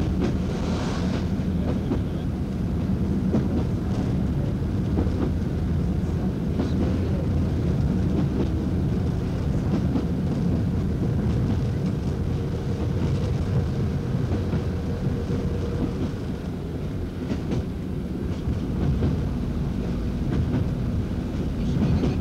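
Diesel train running along the line, heard from inside the driver's cab: a steady low rumble of engine and wheels, with scattered clicks from the wheels over the track.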